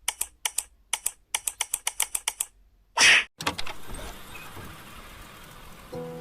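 Computer keyboard typing: quick sharp key clicks in short runs. About three seconds in comes a brief, loud rush of noise, then low room tone, and music with chime-like notes starts near the end.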